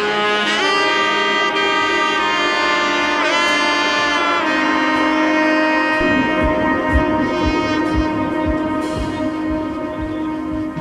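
Background music: held melodic notes with sliding pitch, joined about six seconds in by a steady low beat of about two per second.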